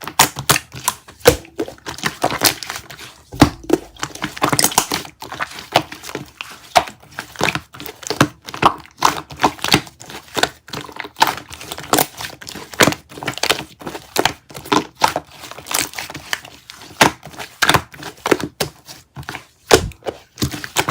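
Red-tinted shaving foam being squished and pressed by hand, giving a dense, irregular crackling with sharp little clicks and pops throughout.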